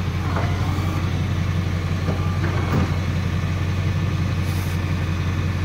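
Flatbed tilt-and-load tow truck's engine running steadily with a low, even hum.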